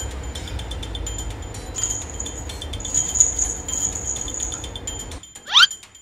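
Light background music: chiming, jingling high notes in an even rhythm over a steady bass. The bass drops out about five seconds in, and a quick rising swoop follows.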